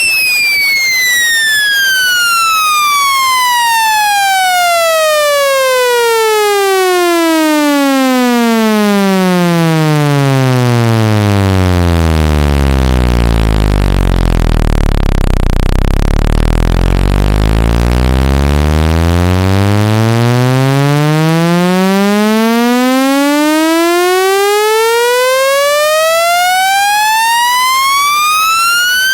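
Speaker-cleaning tone: a loud, buzzy electronic tone sweeping steadily down in pitch to a deep bass hum over about twelve seconds. It holds low for several seconds, then sweeps back up. Such sweeps are played to shake dust or water out of a phone speaker.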